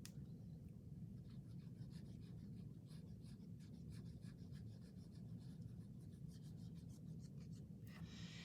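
Faint scratchy rustling and light ticks of hands handling and pressing paper craft pieces, over a steady low hum.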